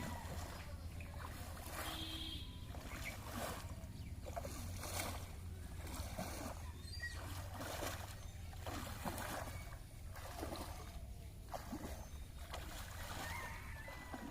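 Water splashing and sloshing in repeated strokes, roughly one a second, over a steady low hum.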